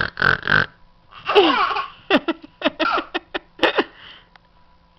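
Baby laughing: a long squealing laugh falling in pitch about a second in, then a run of quick, short laughs.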